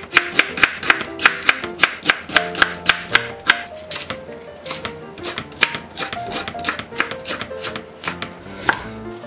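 A chef's knife chopping onion and then a Korean leek on a bamboo cutting board: a quick, even run of sharp knocks, about four a second, thinning out a little after the first few seconds. Background music plays under it.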